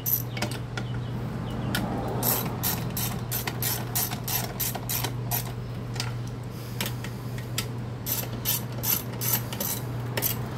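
Hand socket ratchet clicking as the recoil starter's mounting bolts are tightened down on a small lawnmower engine. The clicks come in runs of about three a second, thinning out in the middle, over a steady low hum.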